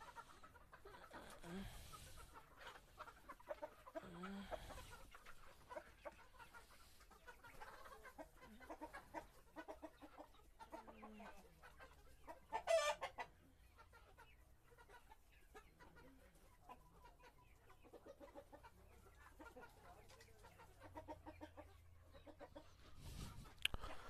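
Chickens clucking faintly, with one short, louder squawk about halfway through.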